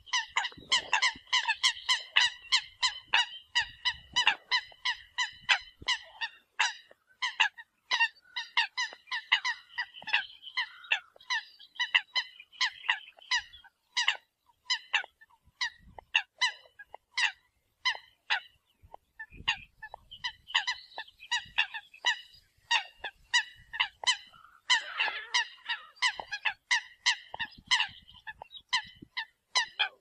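Eurasian coots giving their flock call: a continuous run of short, sharp calls in quick succession, several a second, thinning out briefly about halfway through.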